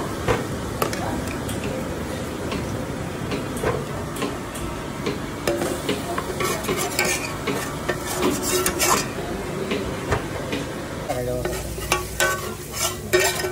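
A metal ladle scrapes and knocks against a hot kadhai as thick chicken masala is scooped out onto a plate, over a steady sizzle. The scraping and clinking come thicker and louder near the end.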